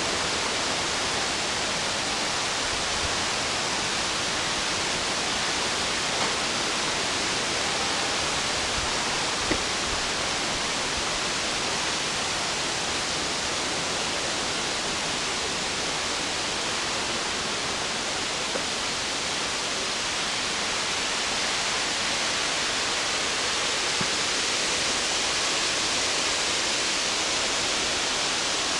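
Waterfall crashing into its pool: a steady, unbroken rush of falling water.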